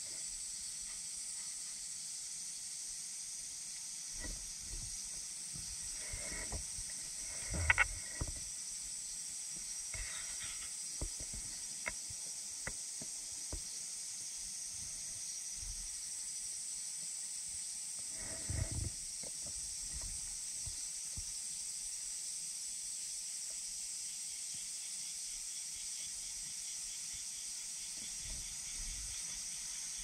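Steady high-pitched insect drone with a faint fast pulsing, joined by scattered soft knocks and rustles. The loudest knocks come about eight seconds in and again around eighteen seconds.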